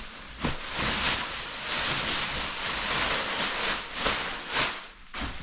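Packaging rustling and scraping as large kennel parts are pulled out of their box, a continuous crinkling with several sharper crackles.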